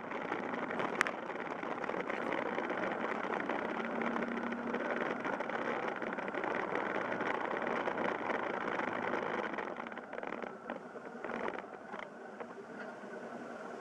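Yamaha Fazer YS250 single-cylinder four-stroke engine running under way, heard from the handlebars together with a steady rush of road and wind noise. It gets quieter and more uneven from about ten seconds in, and there is a single click about a second in.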